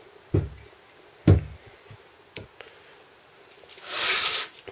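Two dull knocks about a second apart as the heavy cast-iron flywheel is handled against the wooden bench, then a second of rustling handling noise near the end.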